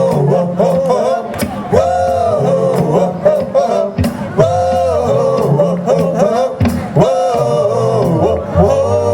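Live rock-and-roll band playing an upbeat oldies number: a sung melody phrase repeating about every two seconds over bass and drums.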